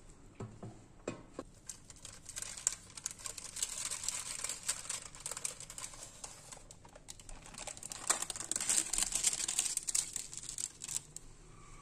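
Baking paper crinkling and crackling as gloved hands handle it, with a couple of light knocks near the start.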